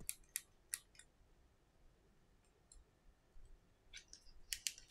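Precision screwdriver ticking and clicking against the small screws at the bottom edge of an iPhone 6s. There are a few sharp clicks at first, then a pause, then a quicker run of clicks near the end.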